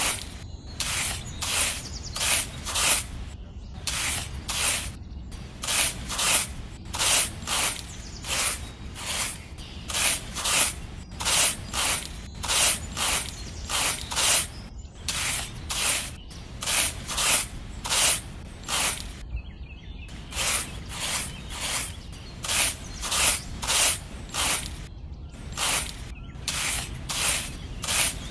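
A small stick scraping and poking into loose sand, a short gritty hiss about twice a second, as seeds are pushed one by one into sand furrows.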